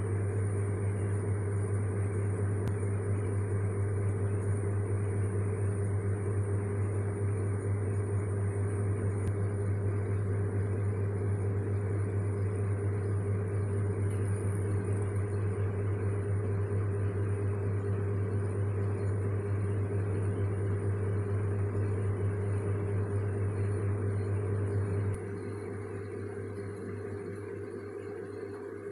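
A steady mechanical hum and whir with a strong deep hum in it. A little before the end it suddenly drops to a quieter level as the deepest part of the hum falls away.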